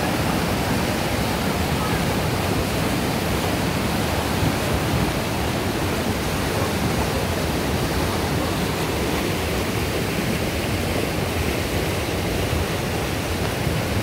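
Fast mountain river rushing over boulders in white-water rapids, a loud, steady rush of water with no breaks.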